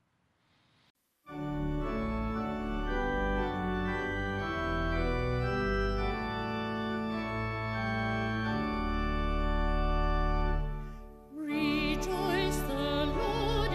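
Organ playing slow, sustained chords, starting about a second in and fading out near the end. A singer with wide vibrato then comes in.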